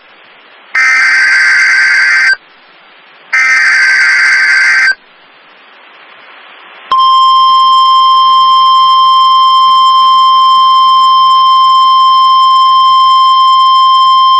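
Two Emergency Alert System SAME header data bursts from a NOAA Weather Radio broadcast, harsh buzzing digital tones of about a second and a half each with a short gap between them. After a pause of about two seconds, the steady single-pitch Weather Radio warning alarm tone comes on about seven seconds in and holds, marking an alert activation for a severe thunderstorm watch.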